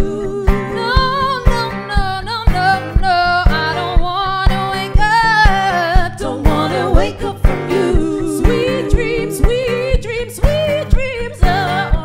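Female vocal trio singing in harmony, held notes with vibrato, over guitar and a steady beat of about two thumps a second.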